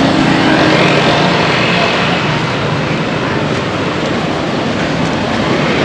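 Loud, steady street traffic noise, with a passing motor vehicle's engine and tyres.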